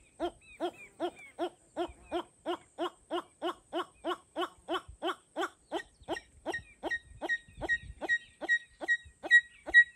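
A bird's hooting call: a long, steady series of short, evenly spaced hoots, about two and a half a second, getting louder and higher-pitched in the second half.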